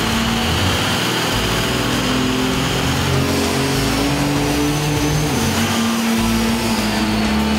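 Diesel pickup engine running hard under load on a chassis dynamometer, with the steady drone of the engine and rollers. The pitch steps once about five seconds in.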